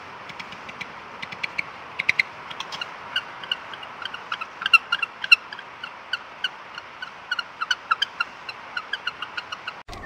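Penguins calling: many short, sharp calls in quick succession over a steady background hiss, loudest around the middle.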